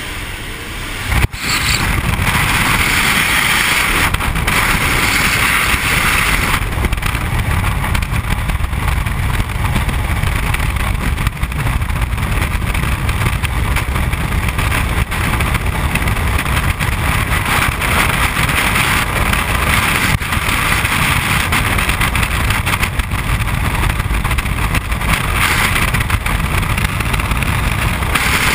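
Wind rushing at the aircraft's open door, then a sharp knock about a second in and a much louder, steady rush of freefall wind across the jumper's camera microphone.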